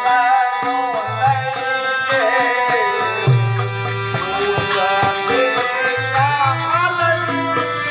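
Live traditional Indian folk music: hand drums beat a steady rhythm under a wavering melody line and a steady held drone.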